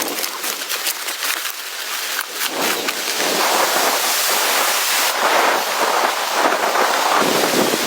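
Blizzard wind blowing in gusts: a rushing noise that swells about three seconds in, with a quick patter of small ticks over the first couple of seconds.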